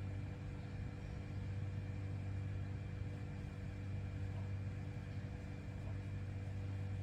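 A steady low mechanical hum with a faint high whine, holding level throughout.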